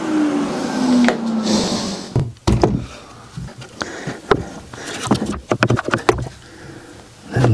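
An electric orbital sander winds down with a falling pitch after being switched off. Then come scattered wooden knocks and clacks as a glued softwood frame is lifted and handled on a workbench.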